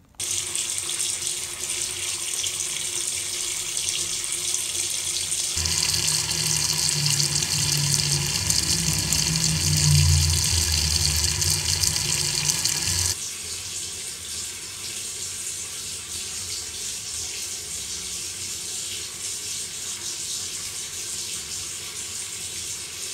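Water from a tap pouring into a sink and down the drain, a steady rush. About five seconds in it turns louder and fuller with a low rumble, and about thirteen seconds in it drops back to a lighter rush.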